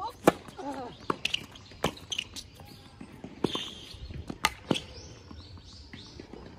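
Tennis serve and rally on a hard court. The first racquet strike on the serve comes with a short vocal grunt, then a run of sharp racquet-on-ball hits and ball bounces is traded back and forth, spaced unevenly.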